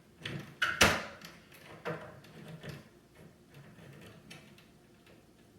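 A few short, sharp clicks and light knocks, the loudest a little under a second in and another near two seconds, then fainter scattered ticks.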